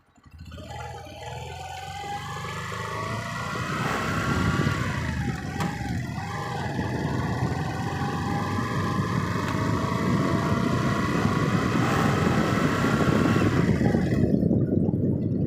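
A vehicle's motor getting under way: the sound swells from near silence over the first few seconds into a steady, loud run. Its whining pitch dips about five to six seconds in and then climbs steadily over a dense rumble of road or wind noise.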